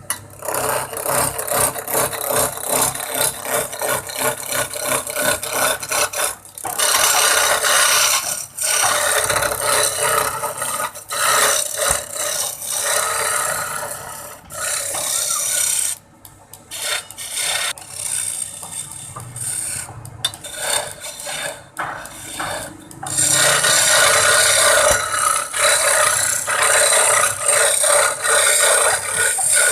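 Wood being worked with a rasping, abrasive tool: a rough scraping in fast repeated strokes, with a few short breaks.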